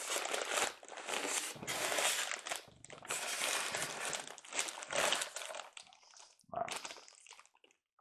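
Plastic and foam packaging rustling and crunching as a large boxed model locomotive is worked free of its box, a dense run of handling noise that dies down after about six seconds, with one more short burst near the end.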